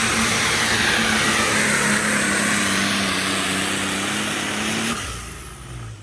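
Superstock pulling tractor's turbocharged diesel engine running hard at high revs while pulling the sled, its pitch and turbo whine sagging slightly under the load. About five seconds in it cuts off, leaving a quieter, lower engine idling.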